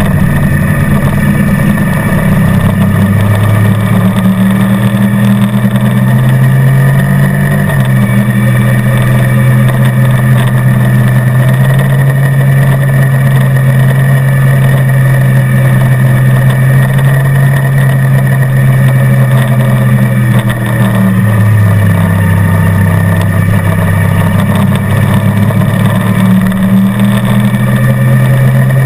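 Motorcycle engine running hard at track speed with a passenger aboard. The engine note steps up about a quarter of the way in, holds steady through a long stretch, sags about two-thirds of the way in, and climbs again near the end as the rider works the throttle through the corners.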